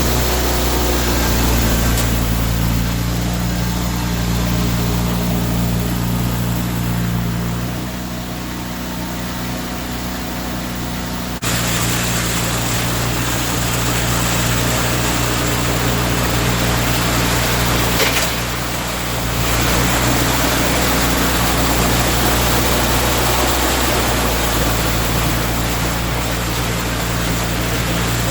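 Tractor engine running steadily, with an abrupt break in the sound about eleven seconds in.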